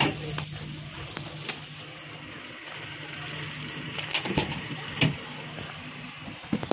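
Scattered knocks and clicks with light rustling from boxes being handled and loaded into a vehicle. A low steady hum fades out within the first two seconds.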